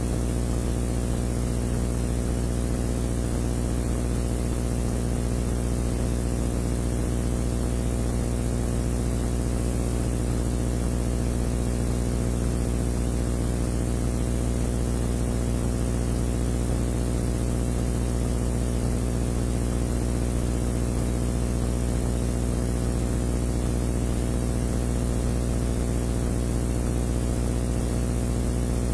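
A steady low hum with many fixed overtones under a layer of hiss, unchanging throughout.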